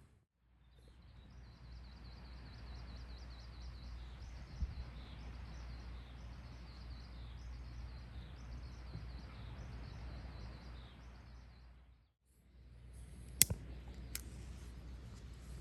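A small bird chirping over and over in short high notes, over a steady low outdoor background noise. After a brief break near the end, two sharp clicks.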